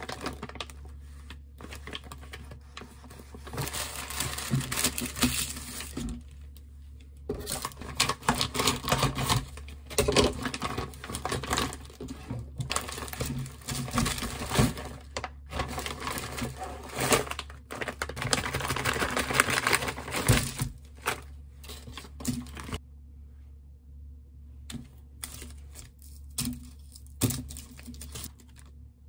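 Plastic bag crinkling and rustling as it is pulled open and shaken out, tipping pieces of raw beef makchang onto parchment paper, in loud spells through the first twenty seconds or so. After that the sound is quieter, with a few light taps as the pieces are set out on the paper.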